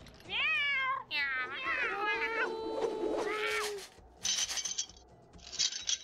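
Kittens meowing: several quick, high, bending meows, then a longer held call with another meow rising over it. Near the end come two short hissy noises.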